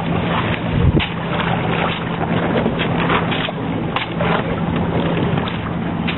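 Jouët Tiburon sailboat under way: a steady wash of wind and water along the hull, with a steady low hum and scattered short rustles and slaps.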